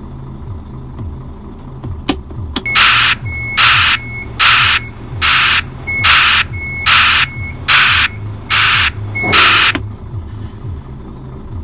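Newly installed truck backup alarm sounding nine loud, evenly spaced beeps about 0.8 s apart with the transmission in reverse, showing the buzzer is wired to the reverse light and working. The truck's engine idles underneath, and two clicks come just before the beeping starts.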